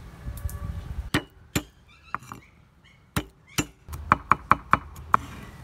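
Cleaver chopping garlic on a thick wooden chopping board: a few separate chops, then a quick run of about five chops a second near the end.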